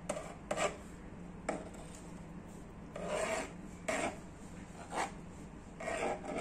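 Palette knife scraping and spreading thick black acrylic paint across a canvas in a series of separate, irregular strokes.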